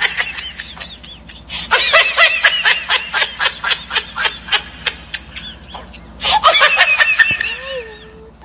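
High-pitched giggling laughter in rapid repeated bursts, about five a second. It comes in two long runs with a short break around five and a half seconds in, plus a brief burst at the very start.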